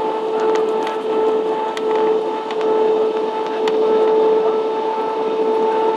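Cabin noise of an Airbus A320-family jet airliner on its landing approach: engines and airflow make a steady rushing drone with a clear, even hum, and a few faint light ticks.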